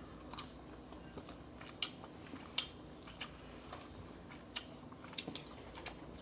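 Eating sounds: faint chewing with irregular sharp wet clicks and smacks, the loudest about two and a half seconds in.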